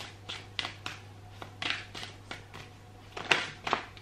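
A deck of tarot cards being shuffled by hand: an irregular run of short, crisp swishes and flicks of the cards, loudest a little after three seconds in.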